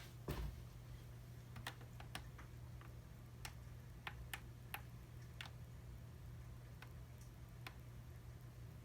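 Faint, steady low hum with about a dozen sharp, irregularly spaced clicks.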